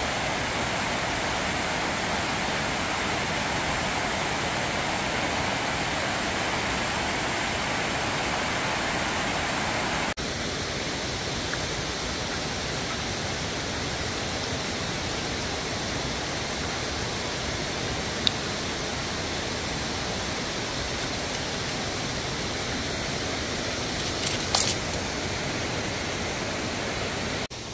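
Steady rush of water pouring over a low dam's spillway, with an abrupt slight drop in level about ten seconds in and a couple of brief knocks in the second half.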